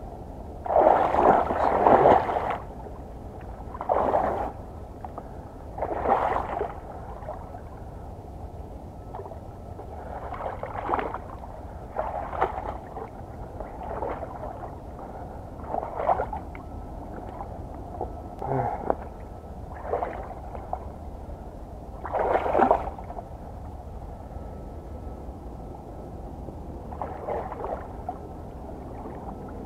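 Water splashing in about a dozen short, separate bursts, spaced one to five seconds apart, the loudest about a second in, over a steady low background rumble.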